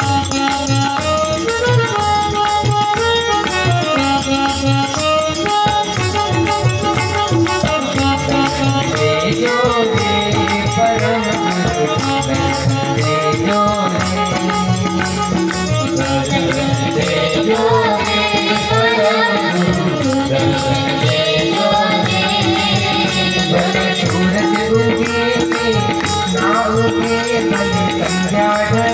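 A man singing a Gujarati devotional song (bhajan) into a microphone, with instrumental and percussion accompaniment.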